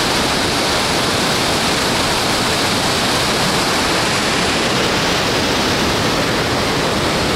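Mountain river raging: a loud, steady rush of water.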